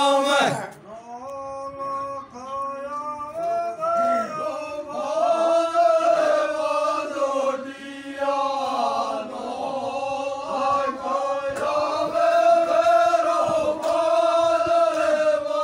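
Men singing a devotional chant together without instruments, voices holding long notes that rise and fall. A loud high voice slides down and stops about half a second in, before the group singing carries on.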